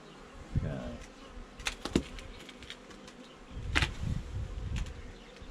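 Honeybees buzzing steadily around an opened hive. Several sharp clicks and knocks come through over it, a cluster about two seconds in and the loudest near four seconds, with a brief low rumble around then.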